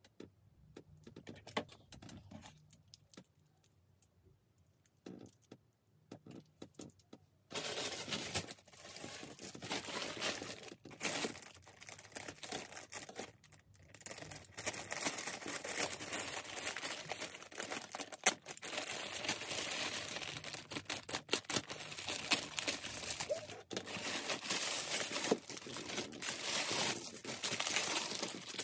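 Plastic mailer bag crinkling and tearing as it is handled and ripped open by hand. This comes in suddenly about a quarter of the way in, after a few quiet seconds of light taps and clicks.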